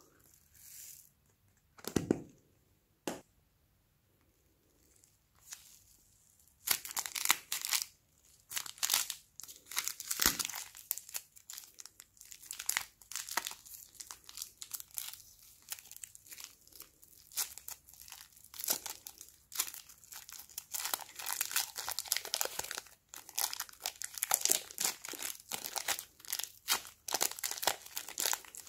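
Thin plastic piping bag crinkling and crackling as it is squeezed and peeled away from soft clay. The first few seconds are mostly quiet apart from a couple of short taps, then steady dense crinkling starts about six or seven seconds in.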